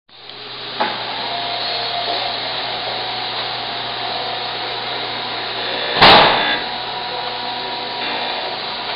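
Chevalier 6" x 18" manual surface grinder running, its spindle motor giving a steady hum and whine while the wheel grinds across the work. There is a sharp click just under a second in, and a louder burst of grinding for about half a second about six seconds in.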